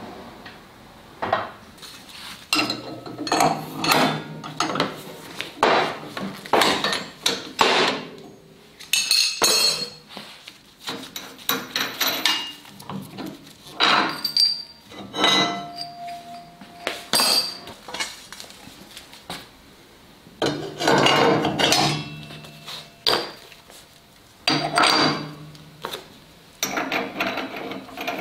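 Irregular metallic clanks, knocks and clinks from a sliding table saw's blade and arbor being handled during a blade change. Some strikes leave a brief ring.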